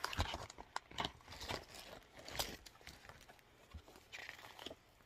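Faint rustling, crinkling and small clicks as a small cosmetic makeup bag is rummaged through and an item is pulled out of it.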